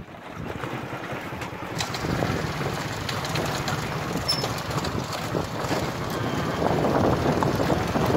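Motorcycle running along a rough dirt track, with wind buffeting the microphone and a few short clicks and rattles.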